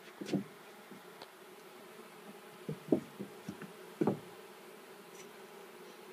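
Honeybees buzzing steadily around a hive, with a few short louder sounds close to the microphone, the loudest about three seconds in.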